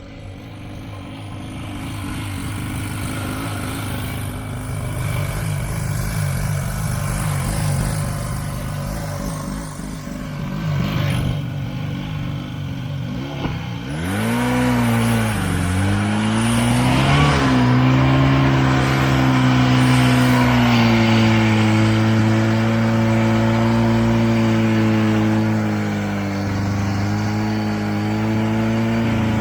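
Buran snowmobile's two-stroke engine running under load. A rough rumble at first; about halfway through the revs rise and fall a couple of times, then hold a steady high drone.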